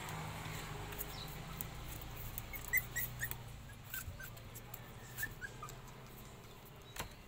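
Small puppies giving short, high whimpering squeaks, scattered through the middle, with a few light taps.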